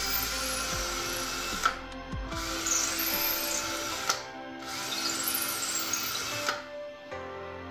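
Electric drill boring through a round wooden rod, running in three stretches broken by short pauses. Background music plays underneath.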